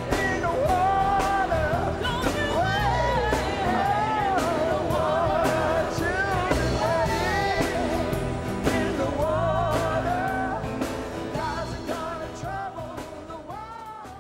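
Singing with full instrumental accompaniment, fading out over the last couple of seconds.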